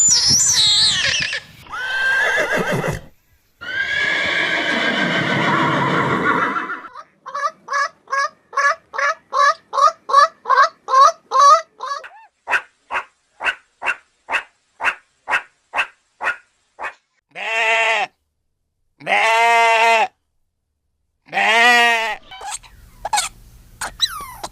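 Farm animals calling one after another: high gliding calls, then a long harsh call, then a fast run of short rhythmic calls that fades out. It ends with three separate drawn-out bleats.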